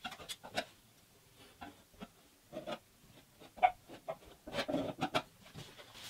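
Faint, irregular short scrapes and squeaky clicks of a small hand tool prodding and pressing freshly sprayed expanding foam in a hole in a hollow-core door, coming more often near the end.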